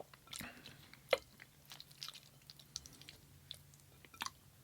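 A person chewing food close to the microphone: soft wet mouth clicks and smacks, with one sharper click about a second in.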